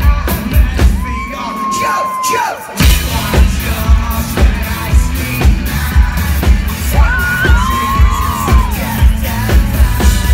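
Live rock band playing loud through a club PA, with a steady drum beat that drops out briefly about two seconds in, then comes back with the full band. Long held notes are sung over it, and the crowd yells and cheers.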